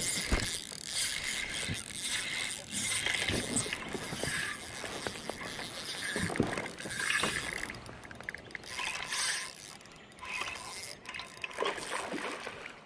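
Spinning reel being cranked by hand, its gears clicking and rattling as the line is wound in, in uneven bursts.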